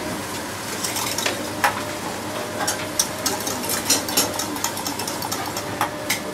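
Wire whisk stirring in a small stainless-steel saucepan, its wires clicking and scraping against the pan in quick, irregular strokes, over steady kitchen background noise.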